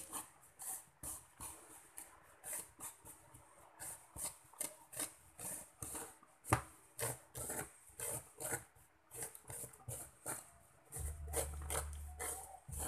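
A knife blade scraping and shaving scored unripe jackfruit flesh into a plastic basin, in repeated rasping strokes about three a second. A low hum joins in near the end.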